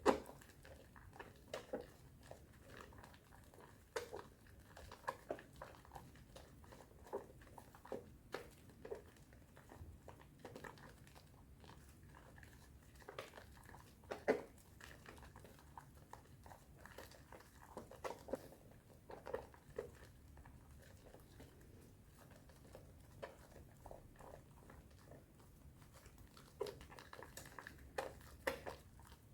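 Hands lathering a bar of soap into thick foam with added powder, making irregular short clicks and squishes of the foam.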